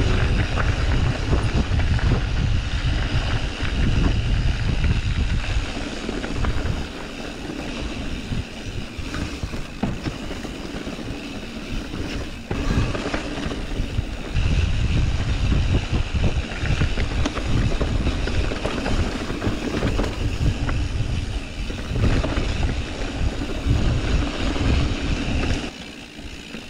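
Mountain bike riding down a dirt trail: tyres rumbling and crunching over the ground, with frequent clicks and rattles from the bike. A heavy low rumble drops away for a few seconds in the middle and comes back, and eases again near the end.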